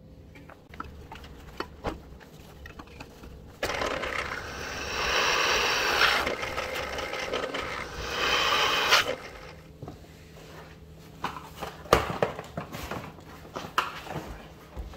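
Drill press bit cutting into a steel flat-bar bracket, a loud steady grinding with a high ringing edge that lasts about five seconds. Before and after it come light clicks and knocks of the metal being handled against the wooden block.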